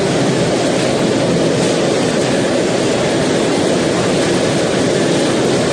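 Hailstorm with heavy rain: hailstones and rain pelting down on a street and its buildings, a loud, dense, steady rush of noise.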